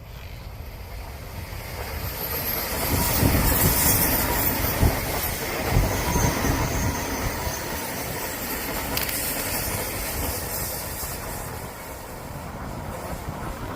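Odakyu Line electric train passing on the line. The rumble and rail hiss build over the first few seconds, with two sharp wheel clacks about a second apart near the middle, then the train runs on steadily.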